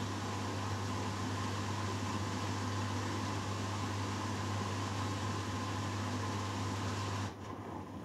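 Hoover Dynamic Next washing machine spinning its load at speed: a steady hum and whine from the motor and drum. About seven seconds in the motor drive cuts off abruptly as the final spin ends and the drum begins to coast down.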